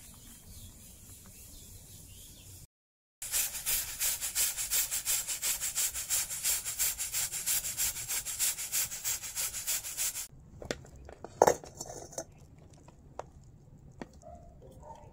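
Pressure cooker on a wood fire letting off steam: a loud hiss in rapid, even puffs, about five a second, as the weight rocks on the vent. It cuts off suddenly and gives way to a few sharp knocks and clinks of metal cookware.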